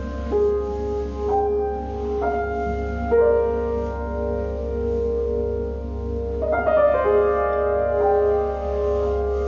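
Slow, sustained piano-like keyboard notes, a new note or chord about once a second, over a steady low drone. A fuller, louder chord comes a little past the middle.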